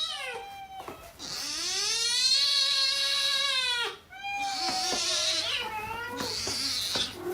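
A domestic cat giving long, drawn-out meows. There is a short call at the start, then a long yowl of about three seconds that rises and falls in pitch, then a second wavering call.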